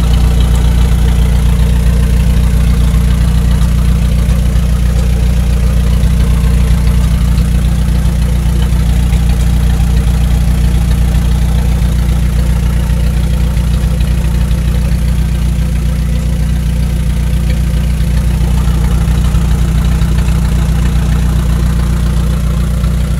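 Isuzu Crosswind's engine and drivetrain running steadily with the wheels off the ground and the drive shaft spinning, a loud, even low drone. It is a dry run to check the drive shaft for imbalance.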